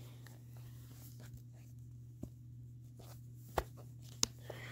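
Quiet handling of a graphic-novel book and the camera filming it: three small clicks and a faint paper rustle over a low steady hum.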